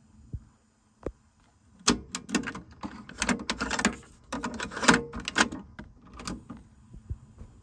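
Plastic clicks and clatter of a cassette being swapped in a TEAC W-350 cassette deck: the cassette door is opened, one tape pulled out and another pushed in, and the door snapped shut, with a single button click near the end. A faint steady hum runs underneath.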